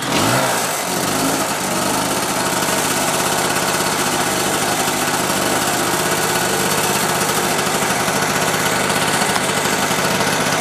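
Medusa T951 two-stroke portable generator engine catching suddenly on the recoil pull, revving up briefly, then running steadily with no load on it. The engine is warm and starts with the choke off.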